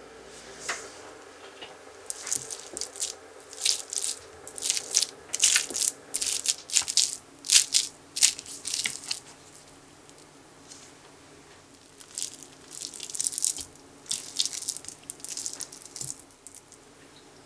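Steamed sweet potato being mashed with a wire potato masher on a ceramic plate: a run of short squishing, clicking strokes. After a short pause, the mash is pushed off the plate into a glass bowl with more brief scraping strokes.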